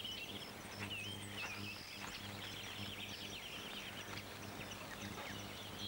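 Birds chirping and trilling in a forest, many short calls overlapping, over a steady low hum.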